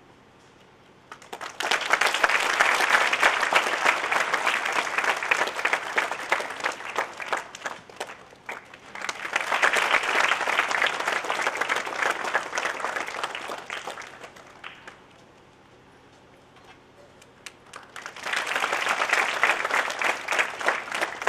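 Audience applauding in three rounds of several seconds each, with quiet gaps between them.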